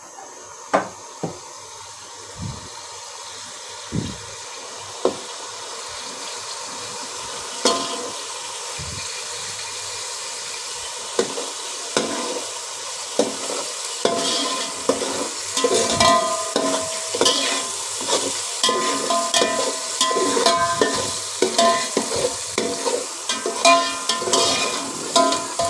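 Egg frying in hot oil in a pan, a steady sizzle that slowly grows louder, with a cooking spoon or spatula stirring and knocking against the pan, the knocks coming more often in the second half.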